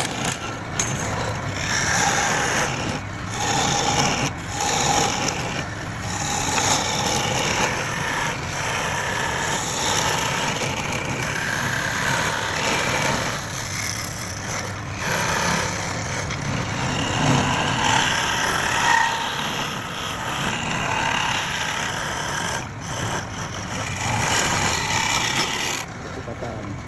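Wood lathe spinning a palm-wood blank while a turning tool cuts it: a continuous rasping scrape, broken off briefly a few times.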